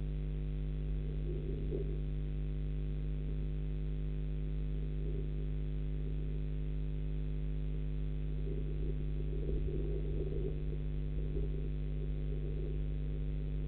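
Steady electrical hum with several constant tones stacked one above another, at an unchanging level. Faint irregular rustling sits over it, most noticeable about a second and a half in and again around ten seconds in.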